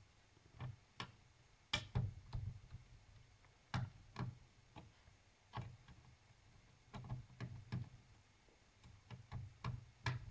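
Irregular small clicks and taps of a screwdriver undoing the three small screws that hold the cooling fan of a Lenovo IdeaPad G560 laptop, over a faint low hum.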